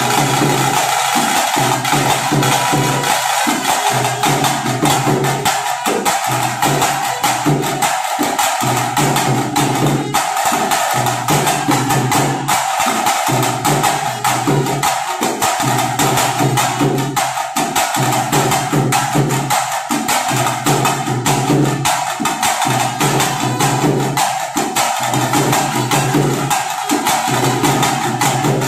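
Loud, fast live drumming: drums beaten with sticks in a dense, steady rhythm of sharp hits, accompanying the dancers.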